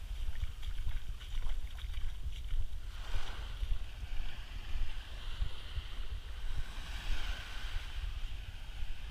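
Wind buffeting the microphone with a gusty rumble, over small waves washing and fizzing onto the sand. One wash swells about three seconds in.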